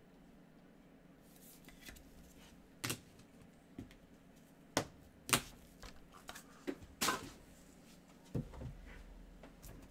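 Gloved hands handling trading cards, a clear plastic card holder and a foil pack wrapper: a string of separate sharp clicks and crinkles, loudest a little past the middle.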